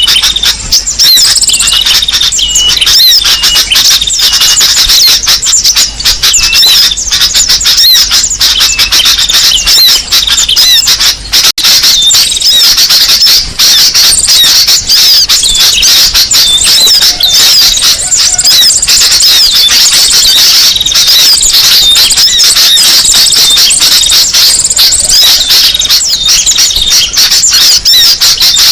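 A bird-lure recording of a dense chorus of small birds chirping, squeaking and trilling rapidly and high-pitched, many calls overlapping almost without a gap, with a brief break about eleven seconds in.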